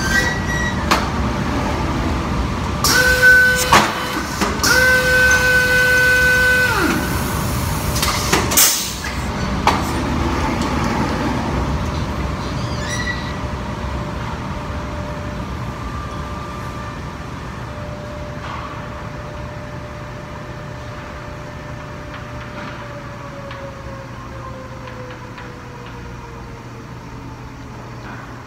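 Pneumatic clamp driver on a clamp carrier tightening bar clamps: loud bursts of air, and an air motor whining at a steady pitch twice for a second or two. Then a steady machine hum fades slowly, with a tone that sinks in pitch near the end.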